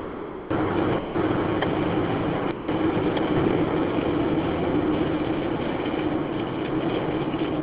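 Steady road noise of a car driving on a wet road, heard from inside the cabin: tyre hiss on wet tarmac over a low engine hum, briefly dipping near the start.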